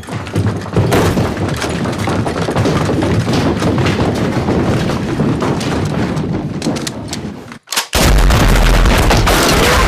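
Heavy gunfire from several guns, shots packed close together and overlapping. It cuts out for a moment near the end, then resumes louder.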